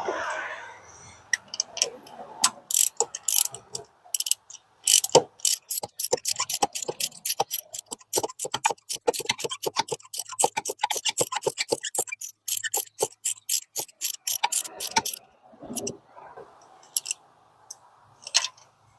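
Socket ratchet clicking in long rapid runs while new spark plugs are threaded into the engine's cylinder head, with a few softer handling noises near the start and near the end.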